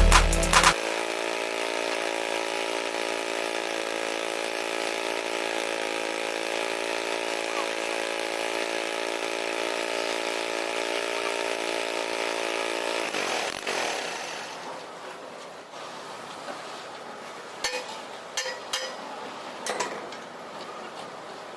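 A power tool's motor running at a steady speed, then switched off and winding down about 13 seconds in. A few sharp knocks follow near the end.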